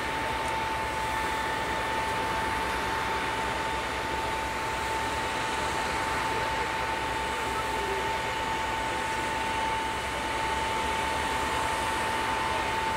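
Steady motorway traffic noise of passing cars, with a constant high whine running under it.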